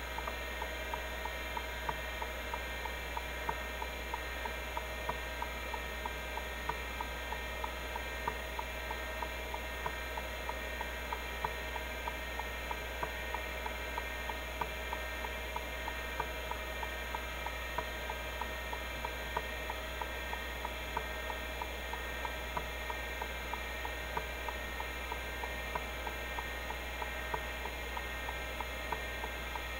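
Seagate ST-251-1 MFM hard drive under a benchmark: the spindle motor hums and whines steadily while the stepper-motor head actuator seeks in a regular run of quick clicks, several a second.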